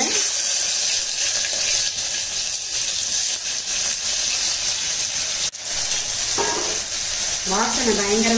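Chopped onions sizzling loudly as they fry in hot oil in a pressure cooker, a steady crackling hiss. It drops out briefly about five and a half seconds in.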